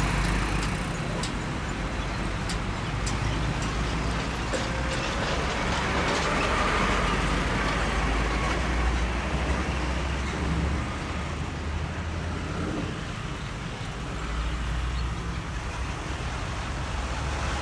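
Heavy trucks and motorcycles moving slowly past in road traffic, with a steady low engine rumble that eases off for a few seconds midway.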